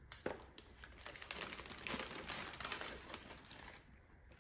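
Paper fry wrapper crinkling and fries being handled, a dense run of small crackles and clicks that eases off near the end.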